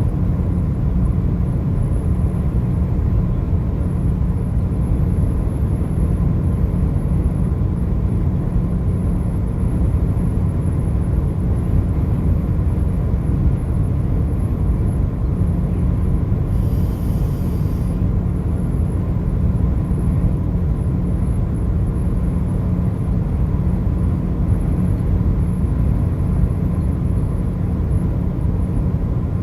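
Steady low rumble of a car travelling at highway speed, with a faint steady high tone over it and a brief hiss about seventeen seconds in.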